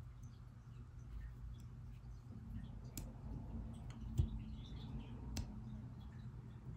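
Faint small clicks and ticks of tweezers tapping and scraping on an iPhone 2G's logic board and metal shields, with a few sharper clicks about three, four and five seconds in, over a steady low hum.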